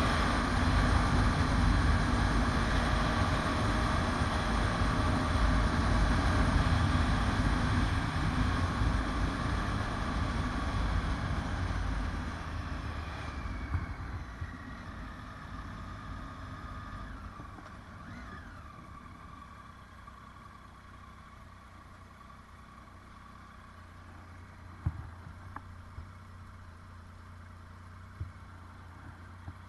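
Motorcycle on the move, engine and wind noise loud on a bike-mounted camera, then slowing down about halfway through and idling quietly, with a few small clicks near the end.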